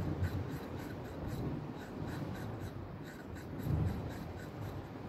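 Point of a large steel fishing hook being stroked on a small wet sharpening stone: a run of quick short scrapes, about four a second, with a low thump near the end.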